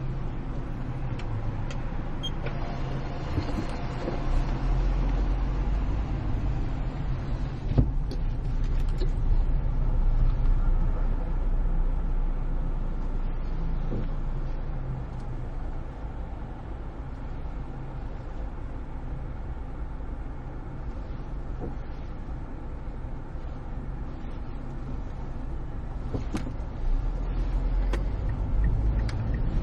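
Car engine and road noise heard from inside a moving car, a steady low rumble. It grows louder for several seconds as the car speeds up, eases back, then rises again near the end, with a few light clicks.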